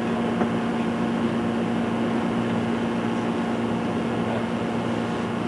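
Steady fan hum with a constant low tone, unchanging throughout.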